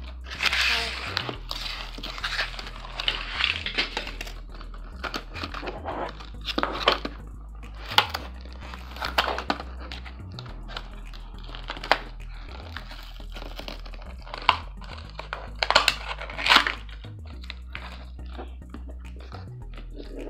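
Cardboard of a small Hatchimals toy box being torn open and its plastic packaging crinkled and handled, in irregular crackling bursts with sharp clicks, loudest about a second in, around seven to nine seconds and near sixteen seconds. Quiet background music with a steady bass line plays underneath.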